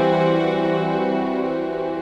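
Background music: soft, sad drama score of sustained chords, fading slightly near the end.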